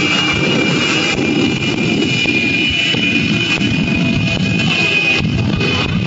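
Jet engine of a jet-powered van running with its afterburner lit: a loud, steady rush with a high whine on top.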